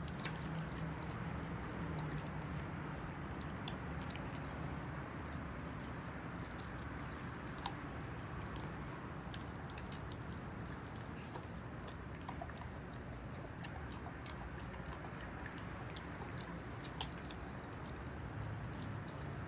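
A four-month-old German Shepherd puppy chewing raw chicken, with irregular sharp clicks and crunches scattered throughout, over steady background noise.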